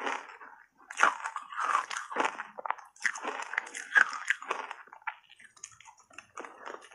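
Close-miked biting and chewing of shaved ice coated in matcha powder: irregular wet crunches of the ice being crushed between the teeth, thinning out near the end.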